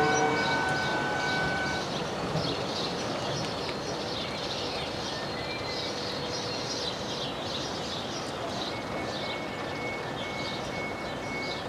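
A train moving away from the level crossing: its sound dies down over the first two seconds and leaves a steady rumble, with birds chirping throughout. A faint repeating high tone begins near the end.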